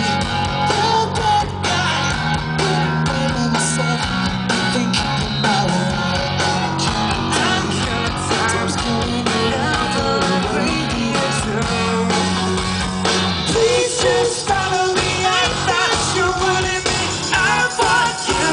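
Live rock band playing loud: electric guitar, bass and drums with sung lines in places. The recording is distorted from standing close to the stage.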